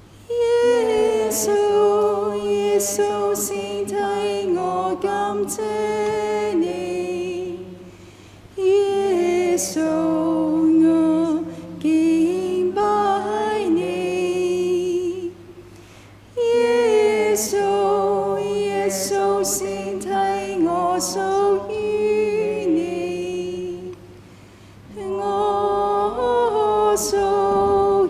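Unaccompanied devotional singing of a hymn, in phrases of about seven seconds separated by short breaks for breath.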